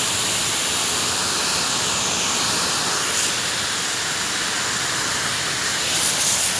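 A steady hiss, even throughout, with a few brief crackles near the end.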